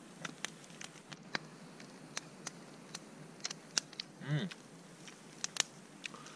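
Campfire crackling: irregular sharp snaps and pops, a couple a second, over a low hiss, with a short hummed "mm" about four seconds in.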